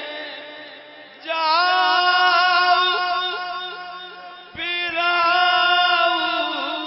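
Male qawwali singing: a long held vocal note with vibrato enters about a second in and fades, and a second one enters about halfway and fades likewise, over a steady low drone.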